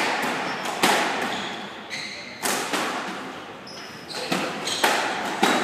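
Squash rally: the ball cracks off racquet strings and court walls in sharp knocks about a second apart, each ringing briefly in the court, with short high squeaks of court shoes on the wooden floor between hits.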